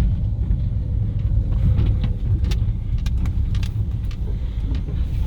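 Car cabin noise while driving: a steady low rumble of road and engine, with scattered light clicks and rattles.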